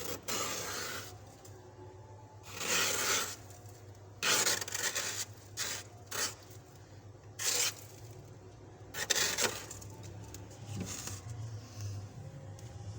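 Soft, fluffy frost being scraped off the inside of a fridge freezer: about eight separate scraping strokes of uneven length, with a steady low hum underneath.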